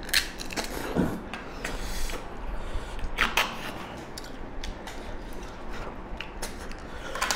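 Eating sounds from two people eating snail and pork curry with their hands: scattered clicks and scrapes of fingers and snail shells on stainless steel plates, mixed with chewing and sucking noises.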